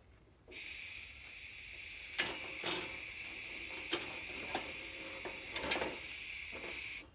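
Unlit propane hissing out of a Coleman camp grill/stove burner after its control knob is opened, before the gas is lit. The steady hiss starts suddenly about half a second in and cuts off suddenly near the end, with a few light clicks over it.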